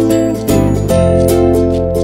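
Background music: a light, upbeat plucked-string tune with notes picked in a quick, even rhythm.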